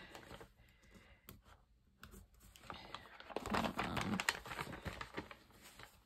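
Soft paper rustling and crinkling, with small clicks, as a sheet of die-cut cardstock pieces is handled and pieces are pulled off it; busiest about halfway through.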